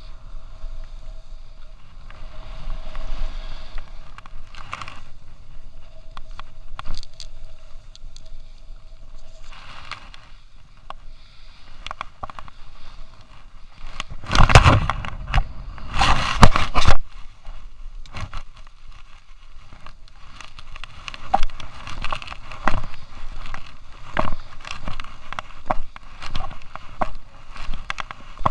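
Skis sliding and scraping over packed snow, with two loud scraping rushes around the middle and a run of short crackles and knocks toward the end.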